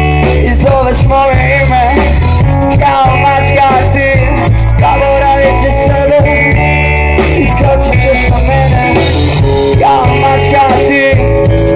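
Live rock band playing loud: electric guitars and bass over a drum kit, with a pitched lead line that bends and changes over them.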